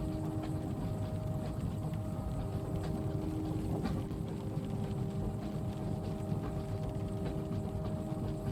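Ambience from inside a moving train carriage: a steady low rumble with a few faint, steady humming tones above it and scattered light clicks.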